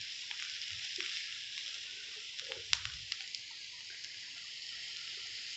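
Diced onions frying in oil in a pan, a steady sizzling hiss with a few faint clicks.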